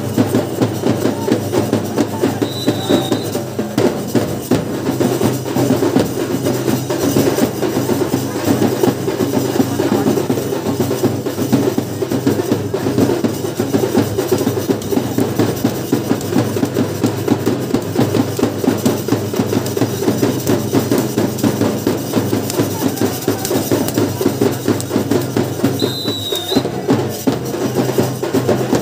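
Drums beating a fast, continuous rhythm, the kind of drumming (dhol) that accompanies lathi khela stick-fighting bouts.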